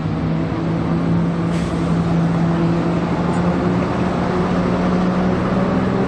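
Single-decker city bus's diesel engine running with a steady note as the bus drives past, with road noise; the sound starts and stops abruptly.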